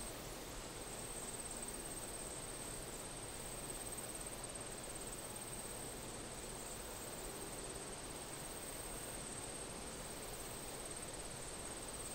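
Quiet forest ambience: a steady, high-pitched insect trill over a soft, even hiss.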